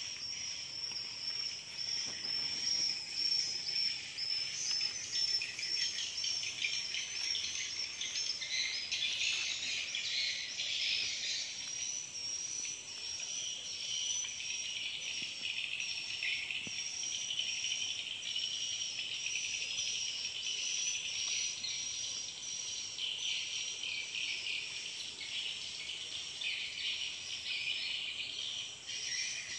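Chorus of tropical insects: a dense, high-pitched shrilling and trilling with a steady shrill tone on top, going on without a break.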